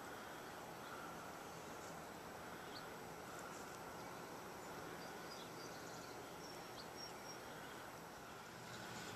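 Quiet outdoor ambience on a snowy hillside: a steady low hiss with a few faint, brief high chirps from small birds scattered through it.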